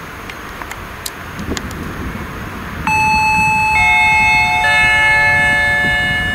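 Railway station public-address chime: three bell-like notes, each lower than the last, entering about three seconds in and ringing on together, the signal that a station announcement follows. Under it, the low rumble of a freight train rolling past.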